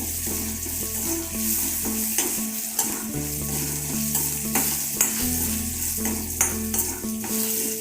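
Urad dal, green chillies and tamarind sizzling in hot oil while being stirred and sautéed with salt. Sharp clicks and scrapes of the spoon against the pan come through the sizzle.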